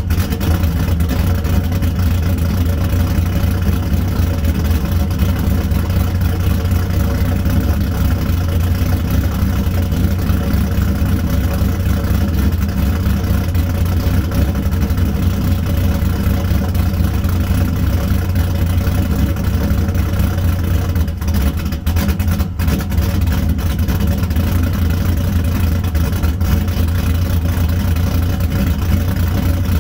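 Cammed Chevrolet Camaro's LS1 5.7-litre V8, fitted with an aftermarket camshaft, idling steadily through its exhaust, with no revving.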